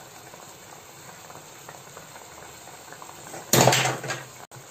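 Grated raw mango cooking in sugar syrup and ghee in a pan, quietly bubbling with faint ticks. About three and a half seconds in comes a brief, loud scrape of the wooden spatula against the pan, lasting under a second.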